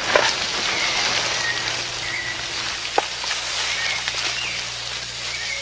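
Tropical rainforest ambience: a steady hiss of insects with faint bird chirps, broken by two sharp clicks, one just after the start and one about three seconds in.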